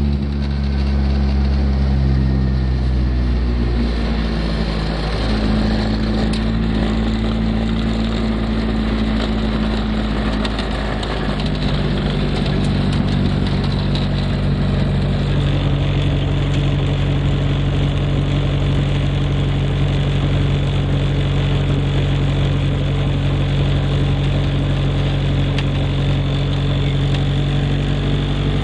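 Turbocharged KA24DE 2.4-litre four-cylinder engine in a Datsun 510, heard from inside the cabin, running under a haze of road noise. Its note shifts in pitch about four seconds in and again about eleven seconds in, then holds steady.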